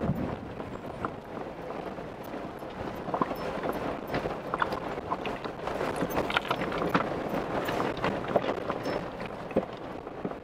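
A 4x4 driving over a rough, rocky backcountry dirt road: a steady noise of tyres on stones and gravel with frequent irregular knocks and clicks.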